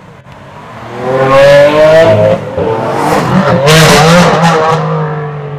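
Ferrari 599 Mansory Stallone's supercharged V12 and a Lamborghini Aventador V12 accelerating hard away, very loud through the Mansory sport exhaust. The engine note climbs, drops briefly at an upshift a couple of seconds in, climbs again, then fades as the cars pull away.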